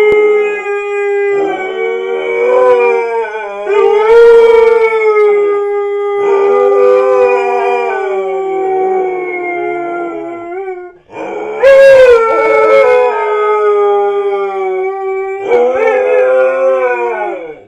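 Two huskies howling together: long, drawn-out howls at two different pitches that overlap, slowly sliding in pitch, with a brief break about eleven seconds in.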